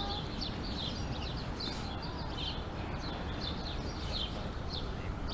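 Small birds chirping repeatedly, short high chirps a few times a second, over a steady low background rumble.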